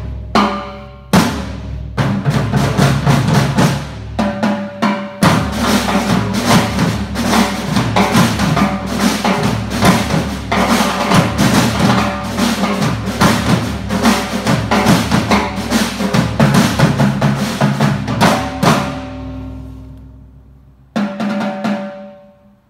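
Percussion ensemble of drum kits, snare drums and toms playing: a few separate loud accents, then a dense, fast passage of many drums for about thirteen seconds that dies away, and one final hit near the end that rings on.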